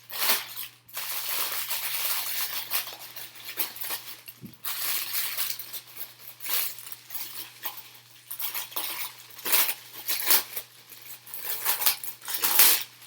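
Small hard plastic model parts clicking, rattling and rustling as they are handled and sorted, over a faint steady hum.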